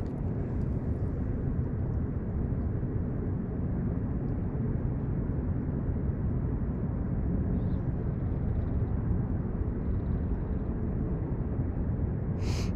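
Steady low rumble of a distant motor, with a brief sharp knock near the end.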